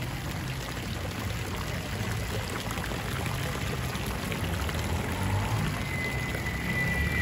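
Steady sound of pouring or running water, with a thin, steady high tone coming in about six seconds in.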